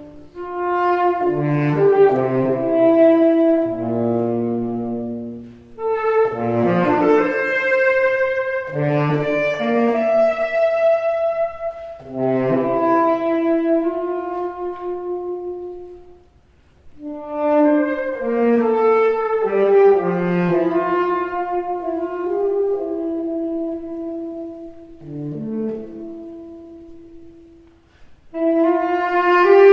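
Live chamber music for tenor saxophone and ensemble: saxophone, French horn and woodwinds play slow phrases of long held notes. There are short pauses about six seconds in, a little past halfway and near the end.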